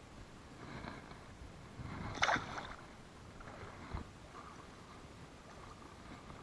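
Water splashing and sloshing around a kayak, with one louder splash about two seconds in and a short knock about four seconds in.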